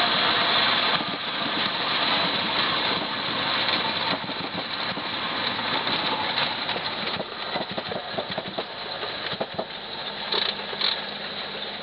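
Floatplane's piston engine and propeller running, heard from inside the cabin as the plane moves on the water. It is loudest at first, drops about a second in, and then grows gradually quieter.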